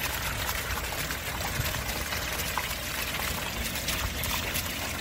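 Water pouring steadily from two pipe outlets and splashing onto the surface of a koi pond, with many small splashes and drips.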